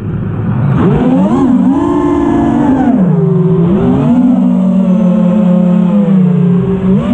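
The four brushless motors and tri-blade propellers of a 5-inch FPV freestyle quadcopter whine, their pitch rising and falling with the throttle. The pitch climbs about a second in and stays high briefly, drops sharply near three seconds, climbs again, then settles to a steadier, lower tone.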